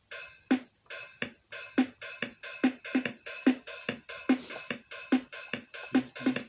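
An electronic keyboard's built-in 'dance beat' rhythm preset: a programmed drum-machine pattern of evenly spaced drum hits keeping a steady tempo.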